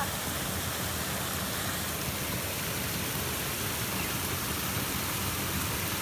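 Small creek waterfall: water pouring over a low ledge and churning into the pool below, a steady rush.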